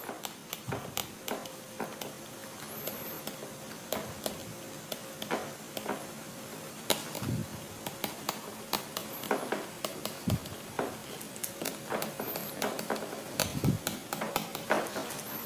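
Handwriting with a pen or marker: irregular small taps and scratches of the tip on the writing surface, with a few soft low thumps.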